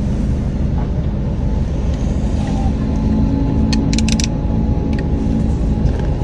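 FPV quadcopter's brushless motors and props running in flight, a steady loud buzz with a few faint clicks about halfway through.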